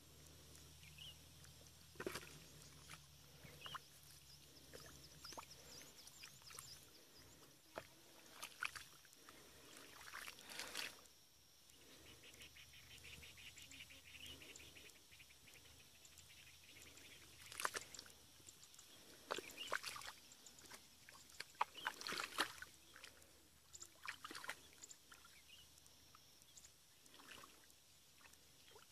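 Hands digging and groping in thick wet mud and shallow muddy water: scattered squelches and splashes, coming in a few louder clusters, most of them in the second half.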